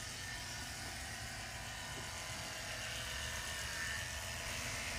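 Electric hair clippers running steadily while cutting the hair short at the back of a man's head, clipping the donor area before an FUE hair transplant.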